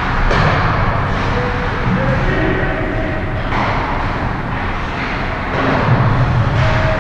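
Indoor ice hockey rink ambience: a steady rumbling hiss with a few swelling hisses and faint distant calls from play at the far end of the ice.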